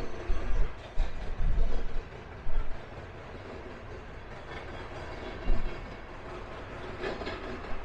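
Freight train rolling past, its wheels clattering with irregular heavy low thumps as they cross the diamond where the tracks intersect, over a steady rumble.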